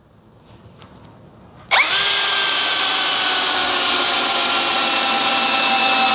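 Yasuka YID318 brushless cordless drill driving an 8 cm hex-head screw into mahogany in screwdriving mode. The motor starts about two seconds in and runs steadily under load, its whine falling slightly in pitch as the screw goes in.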